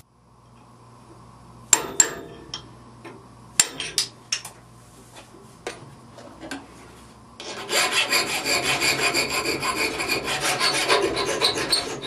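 A few sharp metal taps and knocks in the first half, then, about seven seconds in, a hand file rasping steadily in quick repeated strokes across the edge of a mild-steel sheet-metal spring blank held in a bench vise.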